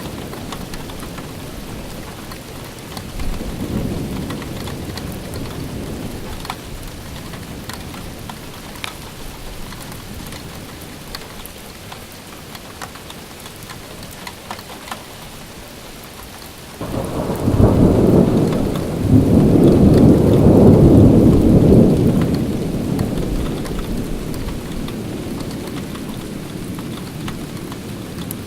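Steady rain falling, with drops ticking, and thunder: a softer rumble a few seconds in, then a loud peal that breaks suddenly about 17 seconds in, rolls for several seconds and fades away.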